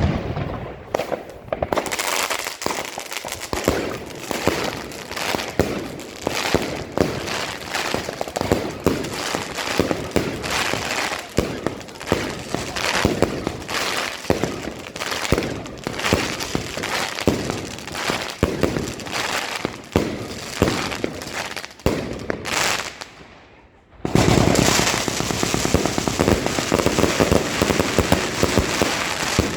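Wolff Jackhammer firework battery firing shot after shot in quick succession. Near the end, after a brief pause, the shots merge into a dense, continuous volley.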